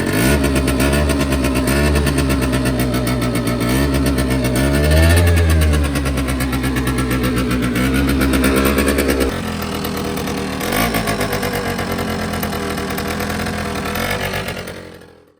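MBK Booster scooter's two-stroke single-cylinder engine running through a freshly cleaned exhaust. It is revved up and down several times, drops back to a lower idle about nine seconds in, gets one more short blip, then fades out near the end.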